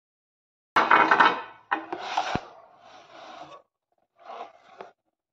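A cardboard box handled on a tabletop: a sharp knock about a second in, then scraping and rubbing of cardboard against the surface, another knock in the middle, and a short scrape near the end.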